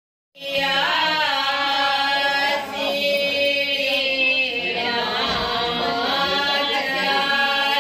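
Singing voices in a melodic chant with long held notes, starting suddenly about half a second in.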